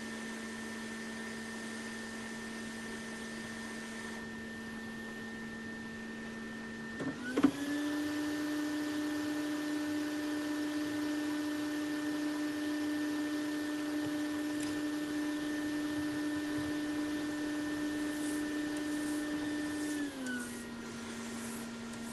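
Hot air rework station's blower running steadily; about 7 seconds in there is a click and the fan steps up to a higher, louder speed, holds it until about 20 seconds in, then winds back down to the lower speed.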